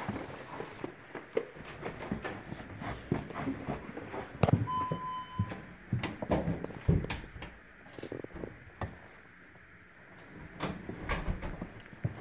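Irregular knocks and clunks, like doors and objects being handled, with a single electronic beep lasting about a second roughly five seconds in.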